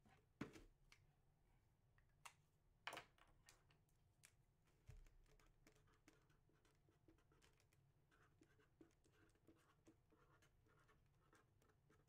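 Near silence: room tone with a few faint, short clicks and scratches, the clearest about half a second in and again near three seconds in.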